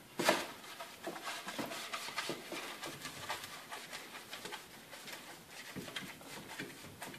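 A brush greasing the inside of a nonstick metal baking tin with oil: a steady run of soft brushing scrapes and small taps against the tin. There is a sharper knock about a quarter second in.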